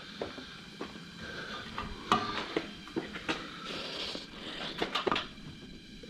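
Hand tools clinking and knocking against metal drivetrain parts: a run of sharp, irregular metallic clicks, with a brief scrape about two-thirds of the way in.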